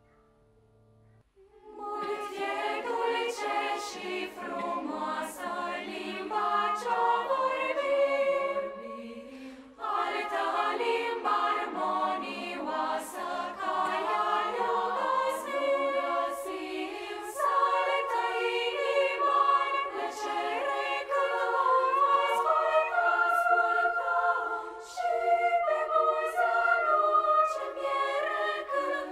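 Children's choir singing in several parts, coming in about two seconds in after a moment of near silence, with a brief break for breath about a third of the way through.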